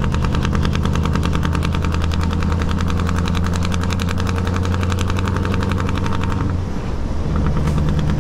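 Scania R520's V8 diesel engine running under load through an open, straight exhaust pipe, a rapid even rattle of exhaust pulses over a deep drone. About six and a half seconds in it drops off briefly, then picks up again.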